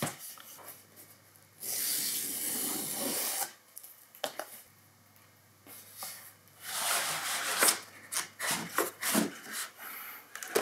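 Cardboard shipping box being opened by hand: a tear strip ripped along the box in one steady pull of about two seconds, then cardboard flaps rustling and scraping as the boxed laptop is slid out.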